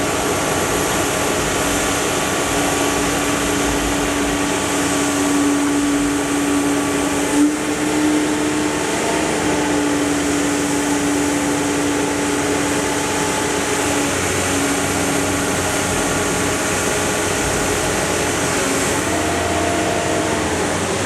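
Iron Pack car baler running: a steady mechanical drone of its engine and hydraulics with a sustained whine that wavers in pitch near the end, and one brief knock about a third of the way through.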